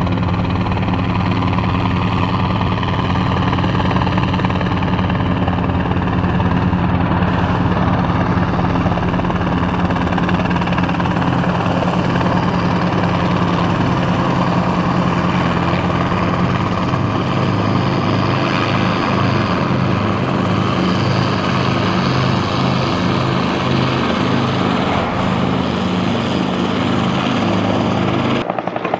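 Light three-blade helicopter flying overhead and then hovering low, its engine and main rotor running loudly and steadily. In the second half the low rotor thrum becomes a pulsing chop, and the sound cuts off abruptly near the end.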